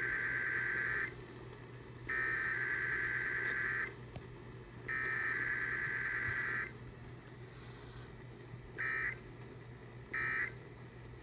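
Emergency Alert System SAME digital header: three repeated buzzy, warbling data bursts of about two seconds each, the first already under way, followed by two much shorter bursts of the end-of-message code that closes the test alert.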